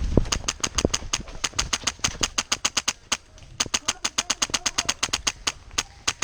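Airsoft guns firing in rapid runs of sharp snapping shots, about eight a second, broken by short pauses. Running footsteps fade out at the very start.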